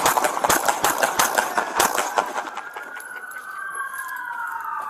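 A rapid run of sharp knocks and cracks for the first two seconds or so, then a police siren wailing, rising and falling, from about halfway through.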